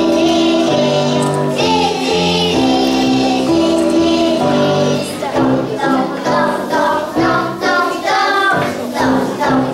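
A group of young children singing together in unison with instrumental accompaniment, long held notes for about five seconds, then shorter, choppier sung phrases.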